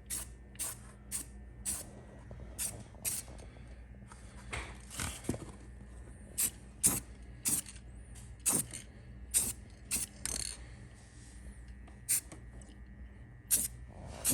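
Aerosol spray-paint can hissing in many short bursts at irregular intervals.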